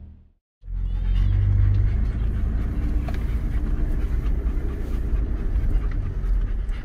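Steady low engine and drivetrain rumble of a 4x4 heard from inside its cabin, with a dog panting close by.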